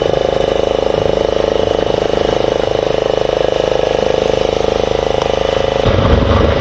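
An engine running steadily with a fast, even pulse, joined by a low rumble near the end.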